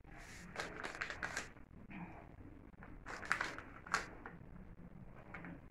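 Thin plastic bag crinkling in quick crisp clusters as grated parmesan is pinched and shaken out of it, in a spell over the first second and a half and again about three to four seconds in.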